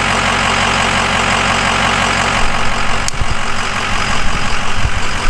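Ford 6.0-litre Power Stroke V8 turbo-diesel idling steadily and smooth, just started on fresh oil and left running to purge air pockets and fill the oil lines. A sharp click about three seconds in, followed by a few low thumps.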